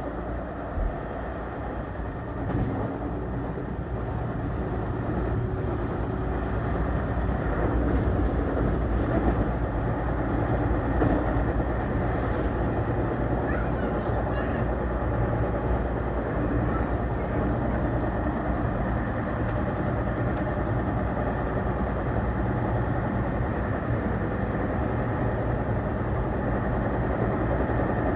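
Seibu Laview limited express train running, heard from the passenger cabin: a steady low rumble and running noise that grows a little louder a few seconds in, then holds level.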